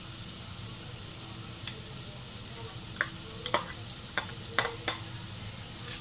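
Chopped red onion sizzling in hot oil in a pan: a steady frying hiss with several sharp crackles, most of them in the second half.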